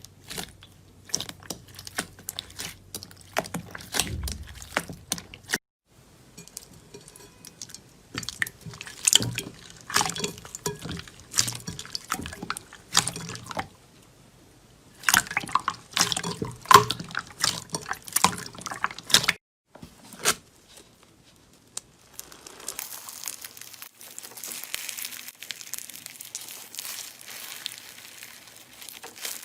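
Slime being squeezed and stretched close to the microphone: wet squishing with quick runs of sticky clicks and pops, in several separate clips broken by brief silences.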